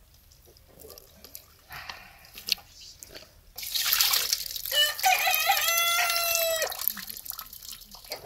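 Water tipped from a plastic bowl splashing into a steel basin, starting about three and a half seconds in, with a rooster crowing once over it for about two seconds. Light drips and small splashes before and after.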